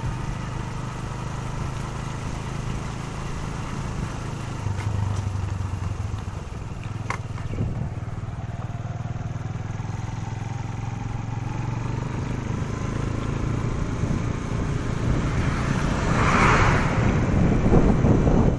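Motorcycle engine running steadily at low speed, heard from on the bike, with a rush of wind noise building near the end.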